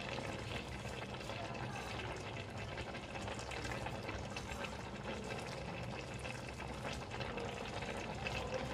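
Basmati rice and meat stock bubbling steadily in a large aluminium pot, just come to the boil, with faint scattered pops.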